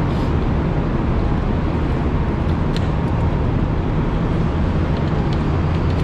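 Steady low rumble of a moving road vehicle, with an even hiss of road noise over it.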